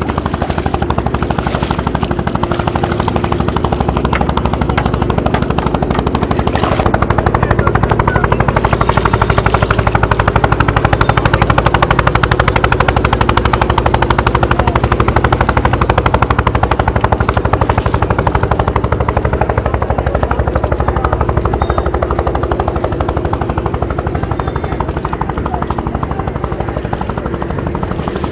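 Boat engine running steadily and loud, a fast even pulse of firing strokes with a steady low drone, rising a little in level about seven seconds in.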